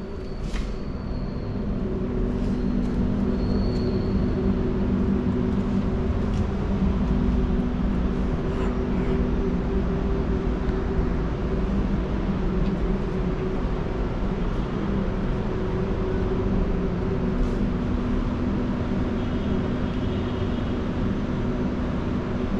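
A vehicle running steadily: a continuous low rumble with a constant hum.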